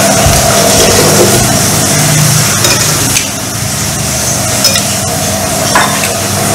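Eating at the table: a spoon and chopsticks clinking and scraping in ceramic bowls, with a couple of short sharp clicks, over a steady hiss.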